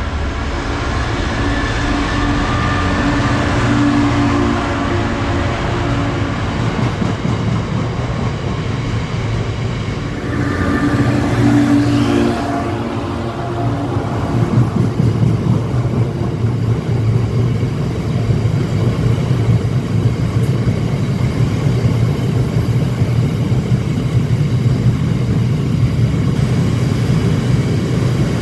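Class 66 diesel freight locomotive, its two-stroke V12 engine running with a steady drone as it approaches and passes, loudest about eleven to thirteen seconds in. Then a long train of open box wagons rolls by with a steady rolling noise and rapid wheel clatter.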